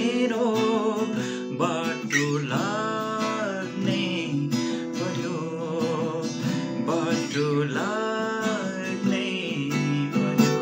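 Acoustic guitar strummed in chords, with a man singing over it in Nepali and holding two long wavering notes.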